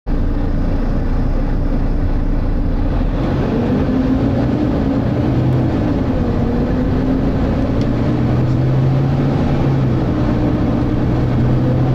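Volvo B9TL double-decker bus's diesel engine running under way with its cooling fan on, heard from inside the passenger saloon: a steady low rumble with a pitched drone that wavers up and down from about three seconds in.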